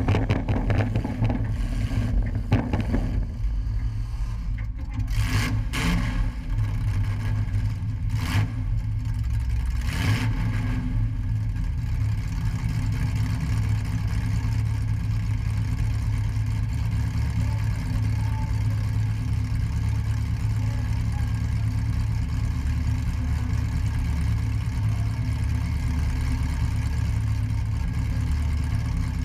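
Demolition derby car's engine running, heard from inside the gutted cab as a steady low rumble. Several sharp knocks come in the first ten seconds or so, after which the engine settles to an even idle.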